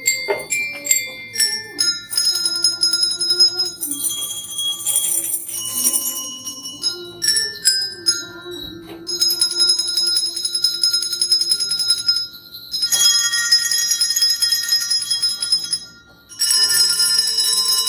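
Bells ringing out a hymn tune, many notes sustaining and overlapping, with a lower melody line beneath. The playing pauses briefly twice, about twelve and sixteen seconds in.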